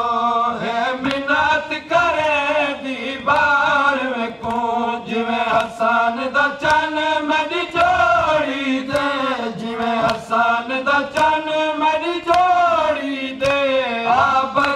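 Men chanting a noha, a Shia mourning lament in Punjabi/Saraiki: a lead reciter sings into a microphone and a group of men join in, in a slow, wavering melody.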